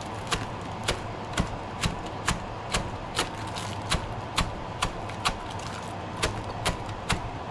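Chef's knife chopping green onions on a plastic cutting board: an even run of knife taps, about two a second, over a steady background hum.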